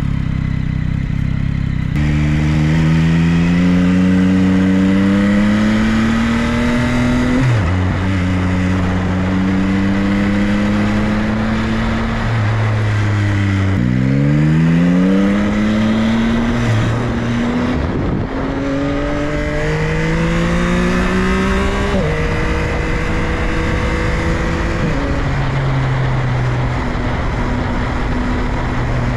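Yamaha XSR900's inline-three engine pulling through the gears, its pitch climbing and then dropping back at each shift, several times over.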